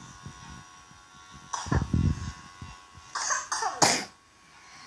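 A young child with a cough and cold coughing, a cluster of short coughs about three seconds in, after a softer low sound.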